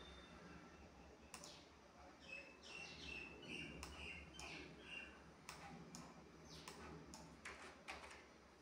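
Near silence: a faint low hum with scattered short, high chirps and a few ticks.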